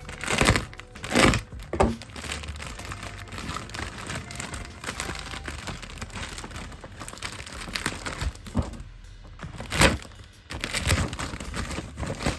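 Plastic packaging crinkling and rustling as a boxed toy is unwrapped and handled, with a few sharp knocks and cracks, the loudest about half a second, a second and ten seconds in.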